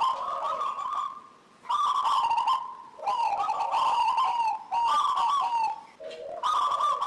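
Zebra dove (perkutut) singing its rapid, staccato cooing song in repeated phrases of quick coos, with brief pauses between phrases about a second in and again near the end.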